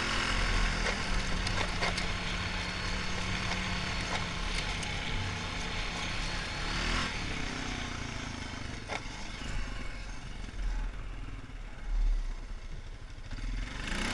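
Honda 450 ATV's single-cylinder four-stroke engine running under way, holding a steady pitch for several seconds and then easing off about seven seconds in. A few sharp knocks and a louder bump near the end come from the machine riding over the trail, and the engine picks up again just at the close.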